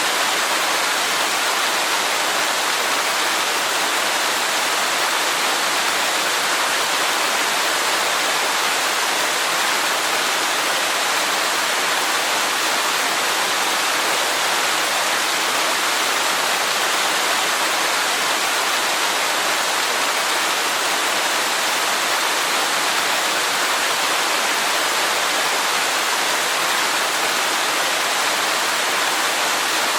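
Waterfall rushing in a steady, even hiss, with most of its sound in the upper range and little low rumble.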